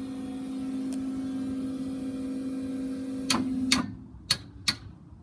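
Steady electric hum that cuts off a little under four seconds in, with four sharp clicks around the cut-off.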